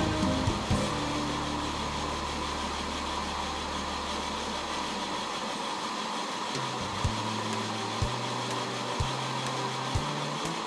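Accucraft Ruby #5 live steam locomotive running fast on a roller stand, a steady hiss of steam and exhaust. Low background music notes change about once a second in the second half.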